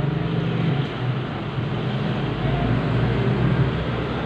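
Steady engine hum with the noise of street traffic.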